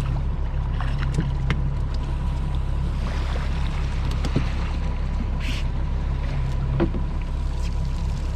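Boat engine running steadily at low speed: an even low hum with a faint steady tone above it, broken by a few light clicks and knocks.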